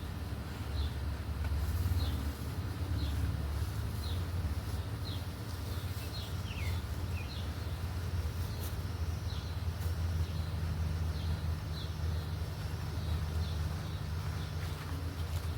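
Steady low rumble under an even hiss, with a bird calling short, high, falling chirps about twice a second that thin out after about ten seconds.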